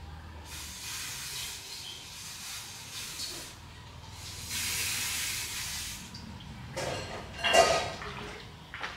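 Hissing spray in two long bursts, the second louder. It is followed by a short clattering knock with a brief ring, the loudest sound, about two-thirds of the way through.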